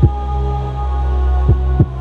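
Ambient background music: a steady droning chord under deep, heartbeat-like thumps that drop in pitch, one right at the start and a double thump about one and a half seconds in.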